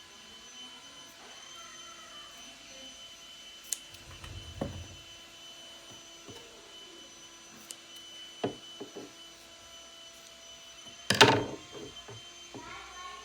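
Scattered clicks and taps of handling craft materials, with one louder clatter about eleven seconds in, over a steady high-pitched electrical hum.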